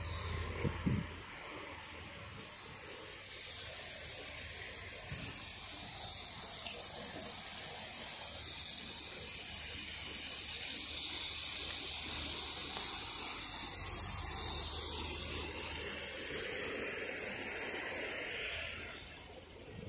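Water splashing over rocks into a garden pond: a steady rushing that builds over the first few seconds and falls away shortly before the end.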